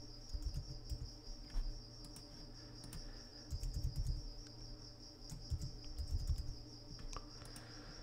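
Soft computer keyboard typing and mouse clicks, in a few short clusters, over a steady high-pitched tone.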